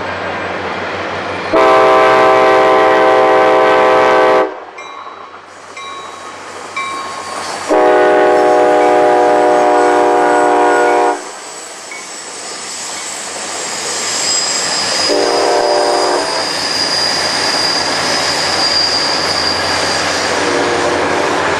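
Nathan K5LA chime horn of an Altamont Commuter Express locomotive sounding the grade-crossing signal: two long blasts, a short one, and the start of a final long one near the end. Between and after the blasts the passenger train rolls past with a steady rumble and a thin, steady high squeal.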